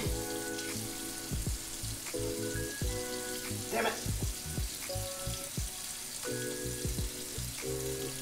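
Background music with deep drum hits and held chords that change every second or two, over a steady hiss.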